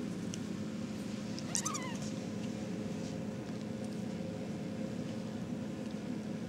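A 4½-week-old RagaMuffin kitten gives one short, high mew that falls in pitch, about a second and a half in, over a steady low hum.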